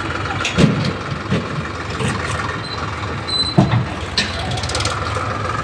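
Eicher 557 tractor's diesel engine running steadily, with a few sharp knocks and clanks over it.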